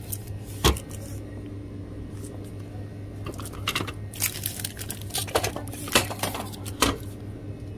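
Small framed signs being handled on a wire store shelf: scattered clicks and clacks as the frames knock against each other and the rack, several in quick succession near the middle, over a steady low hum.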